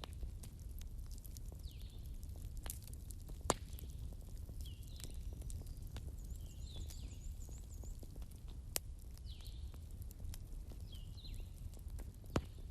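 Wood bonfire crackling with scattered sharp pops, the loudest about three and a half, nine and twelve seconds in, over a low steady rumble of the flames. A bird calls over and over, a short chirp every second or two.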